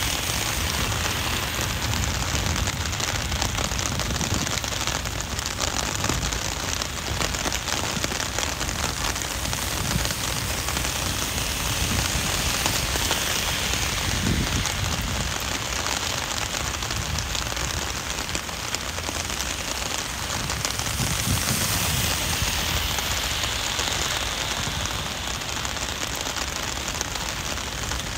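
Heavy rain falling steadily on wet pavement and on an umbrella overhead. A few brief low rumbles rise under the rain at moments.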